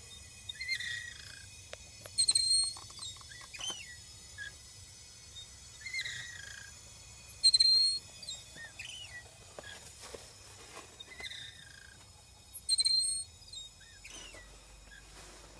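Natural gas meter chirping while gas flows to a running furnace: a series of short, high squeaks, some sliding in pitch, with a sharper, louder chirp about every five seconds. The owner doubts this is normal for the meter.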